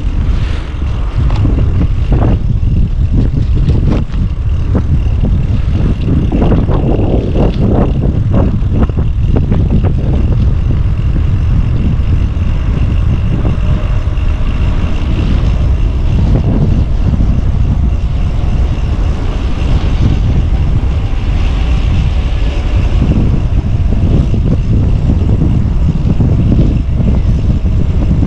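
Steady wind rush buffeting the microphone of a bicycle coasting fast downhill, over road and tyre noise, with a cluster of bumps about six to nine seconds in.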